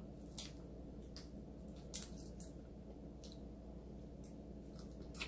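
Faint, scattered wet clicks and squishes of eating by hand: fingers peeling the shell off a cooked shrimp, and chewing, over a low steady room hum.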